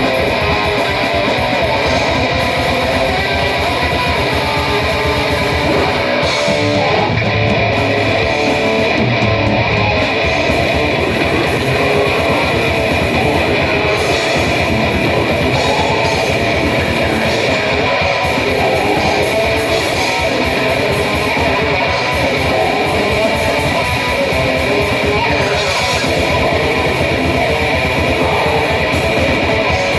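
Live heavy band playing loud electric guitar in a dense, unbroken wall of sound with a fast, driving pulse.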